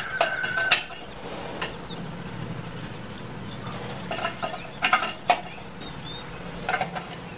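Sharp plastic clicks and knocks as small black parts are set down on and pressed into a white plate: two just under a second in, two around five seconds, and one near the end. Birds chirp faintly in the background.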